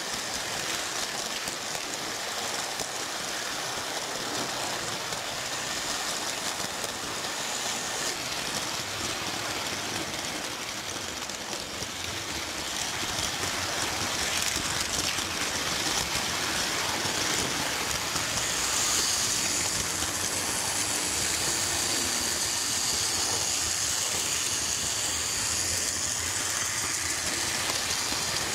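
American Flyer S-gauge electric toy trains running on metal track, led by the No. 350 Royal Blue locomotive: a steady rumble of motors and wheels that grows louder about halfway through.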